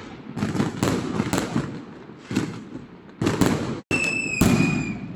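Fireworks and firecrackers going off, an irregular string of sharp bangs with rumbling echo between them. About four seconds in, a high whistle, like that of a whistling firework, sounds for about a second and falls slightly in pitch.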